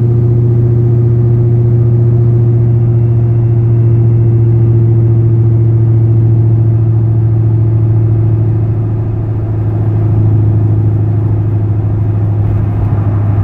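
Steady drone of a car driving at highway speed, heard from inside the cabin: engine and road noise with a strong low hum.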